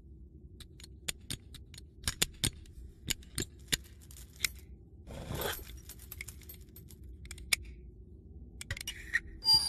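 Metallic clicks and clinks of a robot working a metal machine: a string of sharp ticks, about two a second, with a short rushing noise about halfway through and more clinks near the end. A faint low hum runs underneath.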